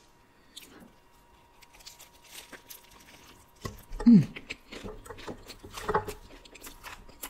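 Close-miked eating of a fried tilapia fish taco: soft rustling as the tortilla is handled, a bite about four seconds in, then chewing with small wet mouth clicks. A short 'mm' from the eater, falling in pitch, comes with the bite and is the loudest sound.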